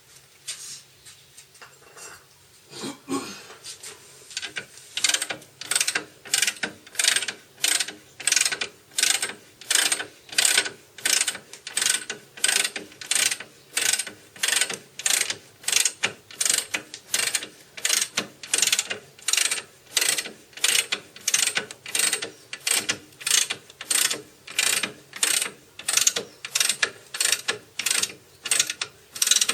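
Ratchet wrench being worked in steady back-and-forth strokes, about one and a half per second, each swing a short burst of ratcheting clicks; it starts with a few uneven strokes and settles into a regular rhythm about five seconds in.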